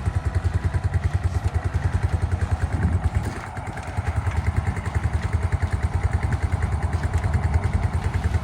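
Small single-cylinder pit bike engine idling with a rapid, even putter, dipping briefly about three seconds in.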